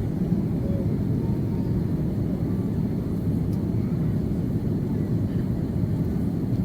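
Steady low rumble inside the cabin of an Airbus A330-300 during the climb: its two General Electric CF6-80E1 turbofans and the airflow around the fuselage, running evenly with no change in pitch.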